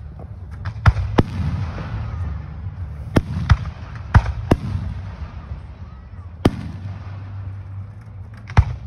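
Aerial fireworks shells bursting overhead in a series of sharp bangs, about eight in all, several coming in pairs a fraction of a second apart, with a steady low rumble between them.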